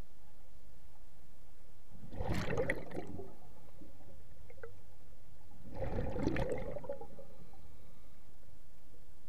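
Scuba diver exhaling through a regulator underwater: two bursts of bubbling, each about a second long, roughly four seconds apart.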